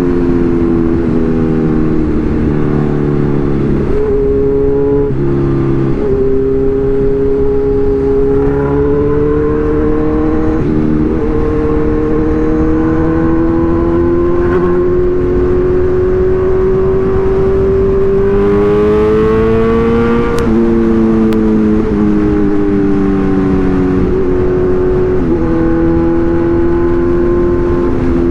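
Kawasaki Z1000's inline-four engine running under way, its pitch rising and falling with the throttle through several gear changes, with one clear climb in revs about two-thirds of the way in before it drops back.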